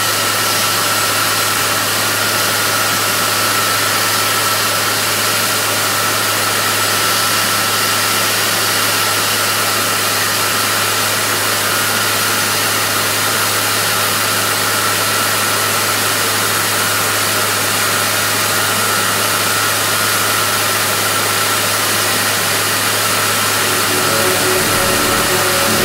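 1994 Ingersoll-Rand T3W water-well drill rig running steadily during a test run: a loud, even rush of machine noise with a thin steady whine over it. Music comes in near the end.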